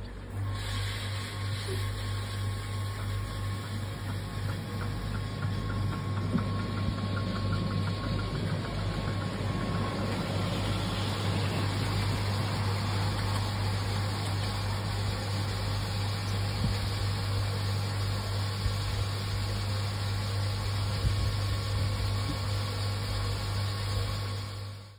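Ride-on miniature railway train running along the track: a steady mechanical hum and rumble of the train under way, with light, rapid clicking in the first few seconds.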